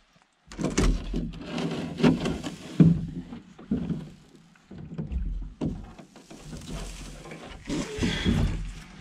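Canoe on the water: paddle strokes and splashing with irregular knocks against the hull.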